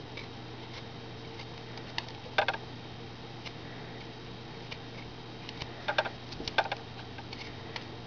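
Carving knife slicing small chips out of a wooden block. It is heard as a few short, sharp clicks, with a cluster about two and a half seconds in and several more around six seconds in.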